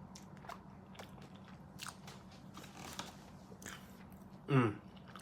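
Close-up chewing of a crunchy, flaky custard egg tart, with soft crackles of pastry between the teeth. About four and a half seconds in there is a brief voiced hum from the eater.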